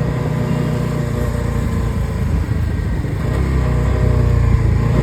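Bajaj Pulsar NS400Z's single-cylinder engine running steadily while the motorcycle is ridden.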